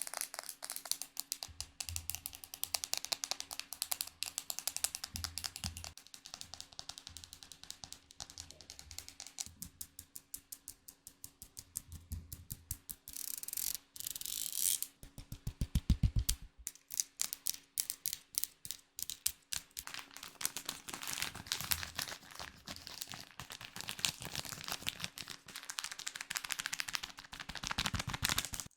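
Rapid close-up tapping and clicking of ASMR trigger sounds, with a few soft low thumps and a brief hiss about halfway through.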